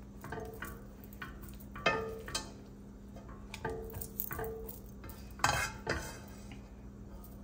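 Silicone-headed spoon stirring spaghetti and ground beef in a pot, with irregular soft scrapes and knocks against the pot, the loudest about two seconds in and again about five and a half seconds in. A faint steady hum runs underneath.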